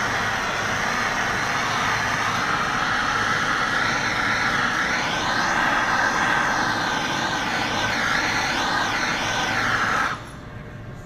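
Handheld gas torch burning with a steady rushing hiss, its flame played over a freshly thrown clay vase on a potter's wheel to firm up the wet clay. It shuts off suddenly about ten seconds in.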